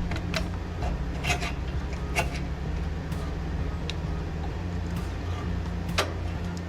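A few sharp metallic clicks and taps, with a brief ring, as carburetor parts are fitted onto a small generator engine by hand. Under them runs a steady low hum.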